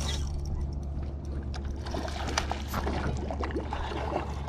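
Water sloshing and splashing against a small fishing boat while a hooked trout is fought and brought in, with scattered small clicks and knocks over a steady low hum.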